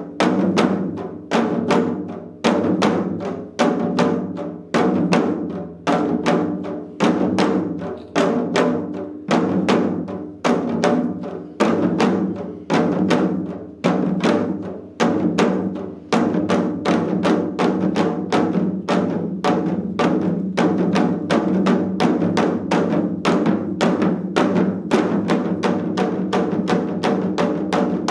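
Four janggu, Korean hourglass drums, played together in a seol-janggu ensemble. For the first half the strokes come in repeating phrases about a second apart, each starting loud and dying away; about sixteen seconds in, the playing turns into a dense, even stream of strokes.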